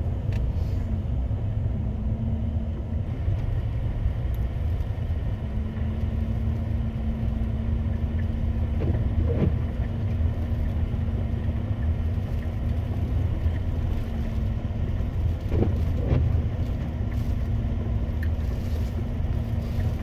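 Steady low rumble of a vehicle's engine and tyres on a snow-covered road, heard from inside the cabin, with a faint steady hum above it.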